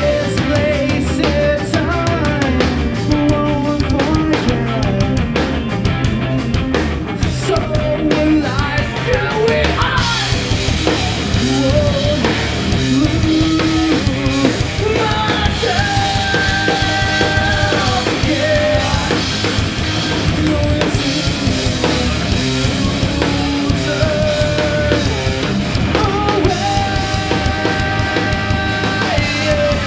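A rock band playing live, with drum kit, electric guitars and bass. The sound turns fuller and brighter about ten seconds in.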